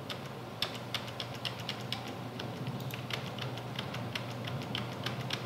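Computer keyboard typing: light, irregular key clicks, a few a second, over a faint steady low hum.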